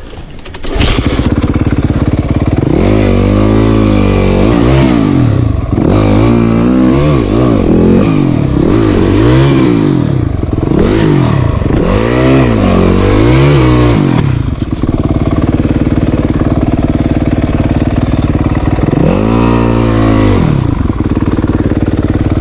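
Yamaha YZ250F four-stroke single-cylinder dirt bike engine, which comes in loud about a second in and is then blipped in a run of rising and falling revs for about ten seconds. It then settles to idle, with one more rev near the end. The engine is running hot, with coolant leaking from the drain onto the bash plate.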